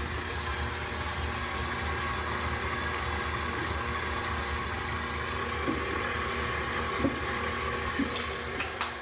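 Electric mixer running steadily, beating the wet cookie-dough ingredients in a bowl, with a few light knocks; it drops in level near the end.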